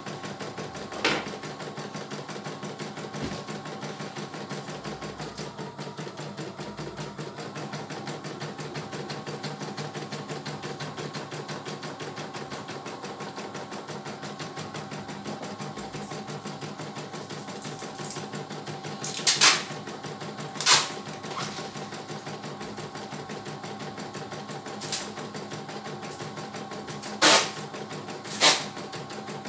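CNY E900 computerized embroidery machine stitching a design, its needle running at a steady rapid rate as the embroidery unit moves the hoop. A few louder sharp clacks come through, two pairs of them in the second half.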